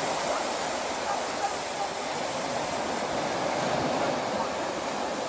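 Small waves breaking and washing up a sandy beach: a steady, even rushing.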